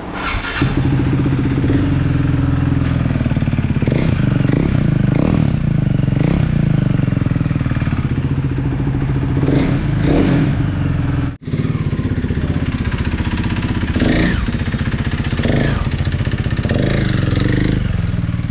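KTM Duke 390's single-cylinder engine running, with the throttle blipped several times so the revs rise and fall. It comes in about half a second in and breaks off briefly about eleven seconds in.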